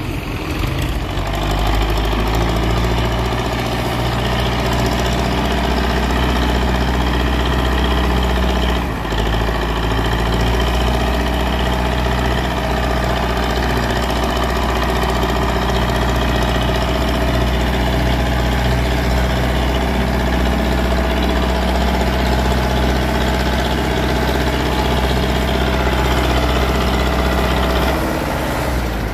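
Diesel farm tractor engine running steadily under load as it pulls a trailer heavily loaded with sugarcane. The note dips briefly about a third of the way through and falls away near the end.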